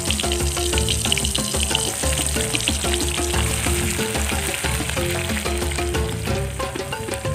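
Food sizzling as it is stir-fried in a wok, under background music with repeating notes.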